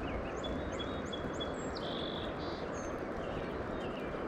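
Several birds chirping and whistling: short rising chirps and repeated high whistled notes, with a buzzy call about two seconds in. Underneath runs a steady rushing noise.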